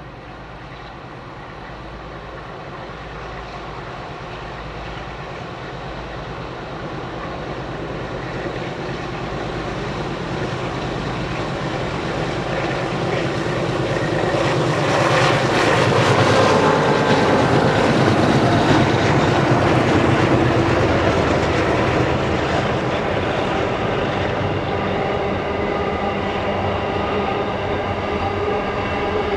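Several diesel locomotives hauling a heavy container freight train up a grade, engines working hard. They grow steadily louder as they approach and drop in pitch as they pass about halfway through, after which the wagons roll by on the rails.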